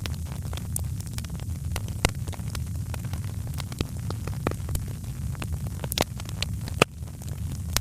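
Wood fire crackling in a fireplace: irregular sharp pops and snaps over a steady low rumble, with a few louder pops about two, six and seven seconds in.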